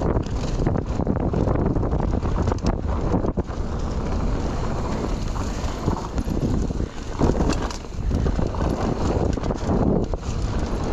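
Mountain bike running down a dry dirt trail: tyres rumbling over the ground, with a constant clatter of knocks and rattles from the bike as it hits bumps. Wind buffets the GoPro's microphone throughout.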